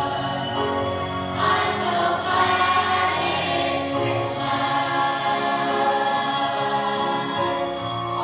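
A choir singing a Christmas worship song over instrumental accompaniment, steadily and without pauses.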